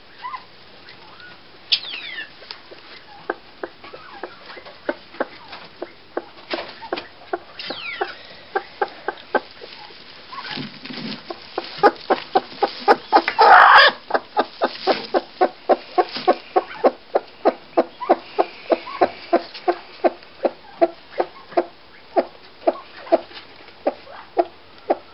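Broody hen on her nest clucking in short repeated pulses, about two to three a second, steadier and louder in the second half. About halfway through there is one loud burst lasting about a second as a hand reaches in to her.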